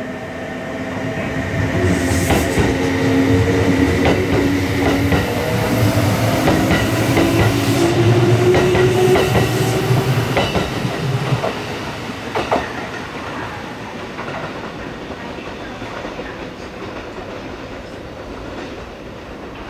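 Kintetsu electric train running on the line, its motor whine rising slowly in pitch over a low rumble, with wheels clacking over rail joints. The sound swells over the first couple of seconds and dies down about eleven seconds in, followed by a couple of sharp wheel knocks and a quieter steady rumble as a train keeps approaching.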